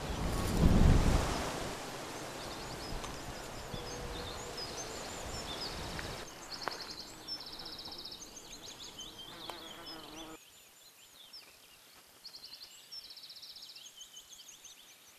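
Small birds chirping and trilling in an orchard, with many short high calls and quick trills repeating. A brief loud rush of noise, like wind on the microphone, comes about a second in.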